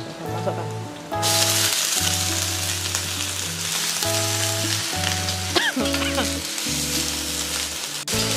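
Fern shoots tossed into a hot oiled wok, sizzling loudly as they are stir-fried with a metal spatula. The sizzle starts suddenly about a second in as the greens hit the wok.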